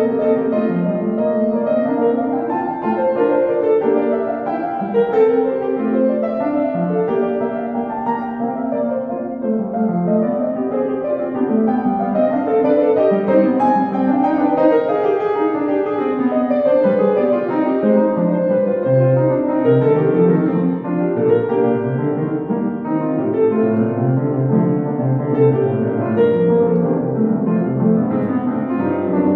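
Solo Kawai upright piano playing a classical piece: an unbroken flow of many notes, mostly in the middle and lower-middle range, at an even loudness.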